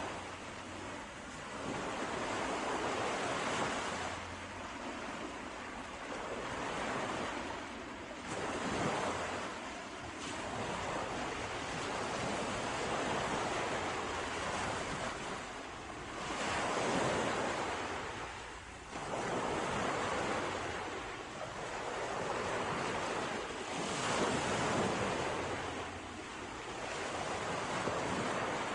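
Sea waves washing in and receding, the surf rising and falling every few seconds, with some wind.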